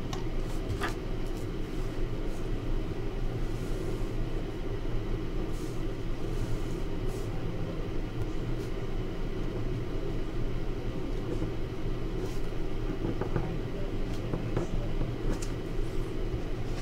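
Steady low hum of room background noise, with a few faint scattered clicks.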